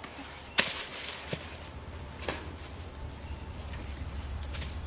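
A person falling from a tree trunk onto dry leaf litter: one sharp impact about half a second in, then a few lighter knocks and rustling of leaves.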